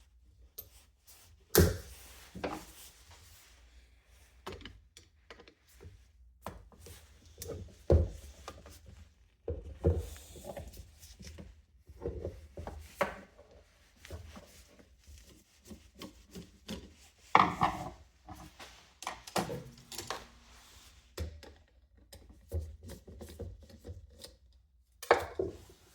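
Irregular rubbing, scraping and small knocks of box-fan motor parts being handled and worked on, with a few louder knocks scattered through.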